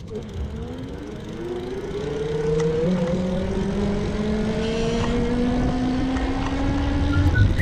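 Heybike Cityscape e-bike's 350-watt rear hub motor whining under throttle, its pitch rising steadily as the bike gathers speed, over a low rumble of tyres and wind. The whine grows louder over the first couple of seconds, then holds.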